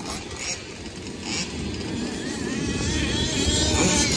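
Small two-stroke engine of a 1/5-scale gas RC car running at varying revs, its pitch wavering, growing louder from about a second in.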